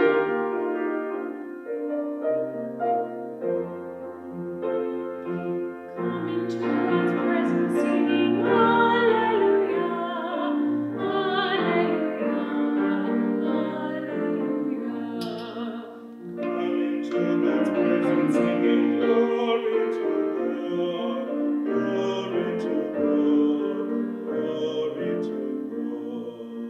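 Classical-style music: a voice singing long, wavering notes over a piano accompaniment.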